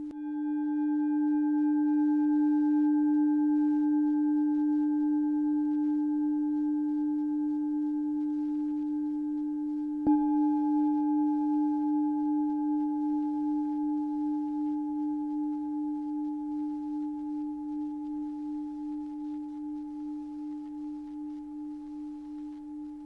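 Singing bowl ringing with a low steady tone and a few higher overtones, its loudness wavering slowly as it fades. It is struck again about ten seconds in and rings on, dying away gradually.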